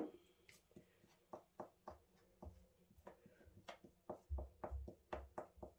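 Faint clicks and light taps of hand work: a spoon stirring and dabbing flour paste on a thin samosa pastry sheet, and the pastry handled on a wooden worktop, with a few soft low thuds about four to five seconds in.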